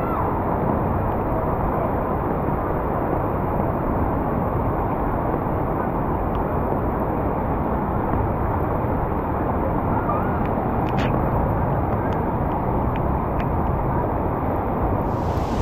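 Heavy rain pouring down as a steady, dense rush of noise, with a few faint ticks about two-thirds of the way through.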